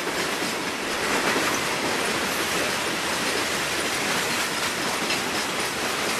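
Freight train cars rolling past: a steady rush of steel wheels on the rails with faint scattered clicks.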